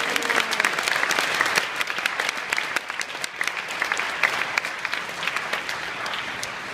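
Large audience applauding an award honoree, the clapping slowly dying down toward the end.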